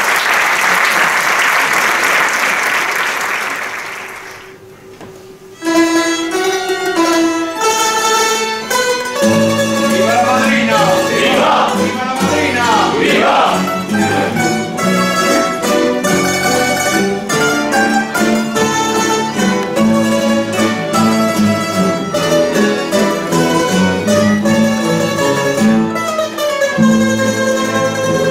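Applause dies away, and about five and a half seconds in a rondalla of plucked strings (guitars, bandurrias and lutes) starts playing, a tremolo melody over strummed chords and a bass line.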